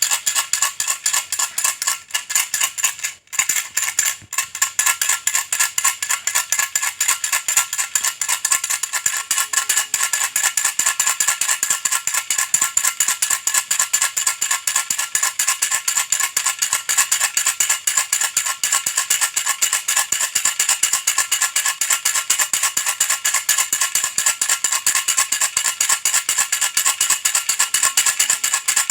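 Baby rattle shaken rapidly and without pause, a dense run of small rattling strokes, with a couple of brief breaks a few seconds in.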